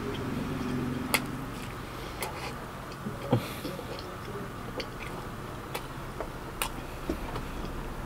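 A person chewing a burger close to the microphone, with scattered sharp mouth clicks and smacks about once a second.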